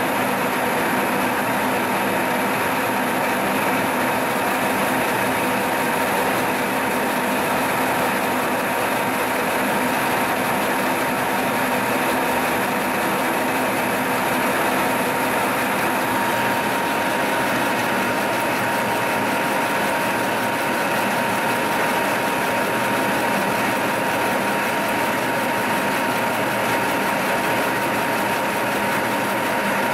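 Milling machine spindle and cutter machining a valve relief into a diesel piston crown. The steady cutting noise carries a constant high whine and holds even throughout.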